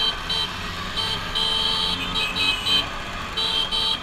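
Scooter horns tooting in a string of short, high-pitched beeps, one held for about half a second, over the low running of scooter engines at slow riding pace.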